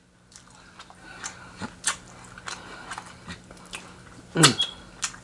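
A person biting and chewing fried chicken close to the microphone: a string of irregular sharp clicks and wet mouth smacks. A short voiced 'mm' with a falling pitch comes about four seconds in.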